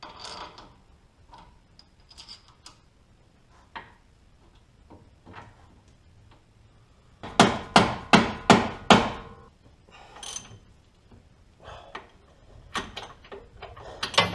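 A hammer striking metal while a Jeep Wrangler TJ's front track bar is knocked into place: scattered light knocks and clanks, then a quick run of about six hard blows in the middle, followed by a few more knocks.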